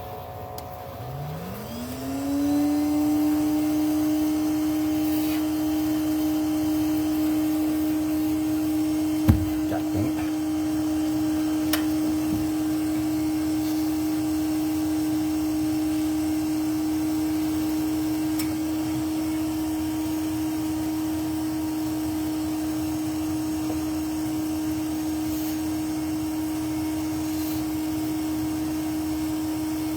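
A vacuum motor switching on about a second in, its whine rising in pitch over a second or so and then running steadily. A couple of short knocks come near the middle.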